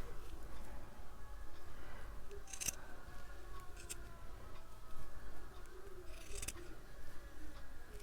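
Scissors cutting through fabric: a few separate snips a second or more apart.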